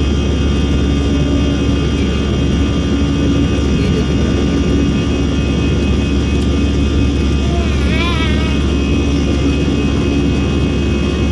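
Cabin noise inside an Airbus A320-214 climbing after takeoff: the CFM56 jet engines and airflow make a loud, steady drone with a strong low hum and steady whining tones.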